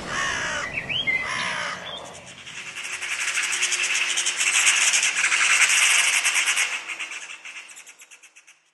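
Harsh corvid calls: two short rough calls in the first two seconds, then a long, rapid rattling chatter that fades out near the end.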